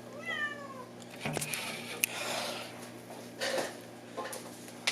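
A house cat gives one meow that falls in pitch, followed by rustling and a few sharp knocks as she is grabbed at while clinging in the basement rafters.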